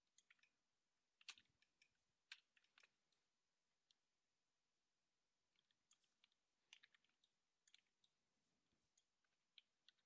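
Faint clicking of a computer mouse and keyboard, in scattered clusters with a pause of about two seconds in the middle.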